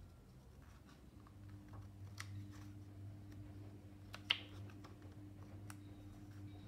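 Paper pages of a printed booklet being turned by hand: faint rustles and small clicks, with one sharp paper snap a little past four seconds in, over a faint steady hum.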